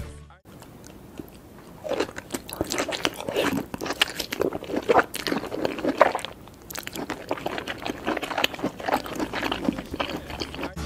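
Cartoon eating sound effects of a giant crab chomping a mouthful of fish: irregular wet crunches and chewing. The song music cuts off at the start, and the chewing begins about two seconds in.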